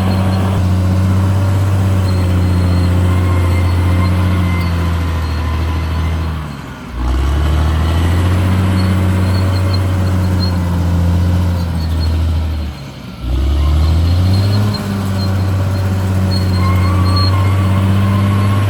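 CAT D6R XL bulldozer's diesel engine running loud and steady, its revs dipping sharply twice, about six seconds apart, and climbing back each time.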